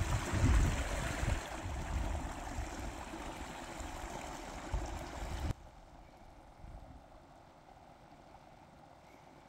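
Small meadow stream trickling and gurgling, with wind rumbling on the microphone during the first second or so. The water sound cuts off abruptly a little past halfway, leaving faint quiet outdoor ambience.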